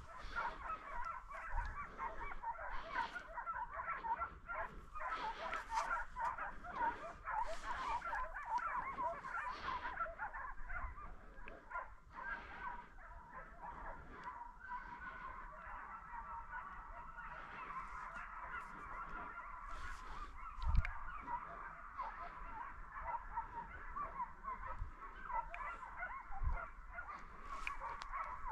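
A pack of hunting hounds baying at a distance, many voices overlapping without a break as they work a wild boar through the cover. A single brief low thump sounds about two-thirds of the way through.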